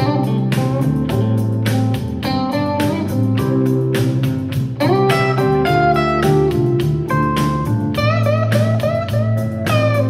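Guitar-led music with a steady beat and bass, played through an Anker Soundcore Motion+ portable Bluetooth speaker set to 52% volume.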